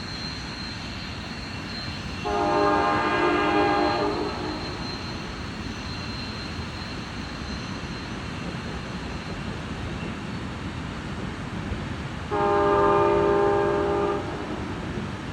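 Train horn sounding two long blasts about ten seconds apart, each lasting about two seconds and made of several notes sounding together, over steady train noise.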